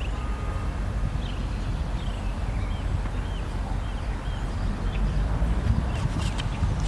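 Songbirds chirping repeatedly in short calls over a steady low outdoor rumble.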